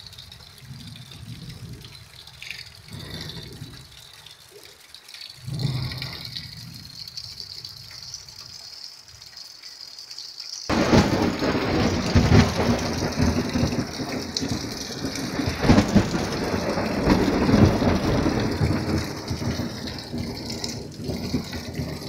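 Thunderstorm: rain falling with low rumbles of thunder. About ten seconds in the sound cuts abruptly to a much louder, heavier downpour with rumbling underneath.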